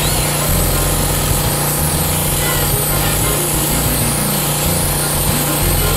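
Gas-engine pressure washer running steadily at full pressure, with the hiss of a wet-blasting nozzle's water jet spraying against pool tile.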